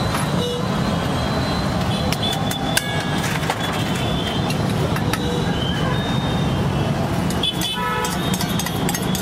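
Busy roadside ambience: a steady rumble of traffic with short horn toots, and a few sharp metal clinks of a spatula on the steel griddle.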